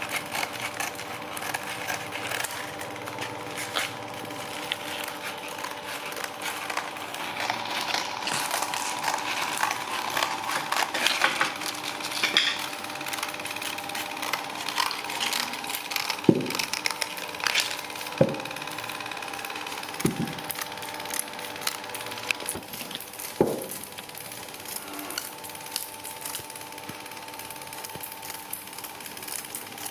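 Woodworking workshop sounds: a machine hums steadily under scattered small clicks, with four sharp knocks in the second half.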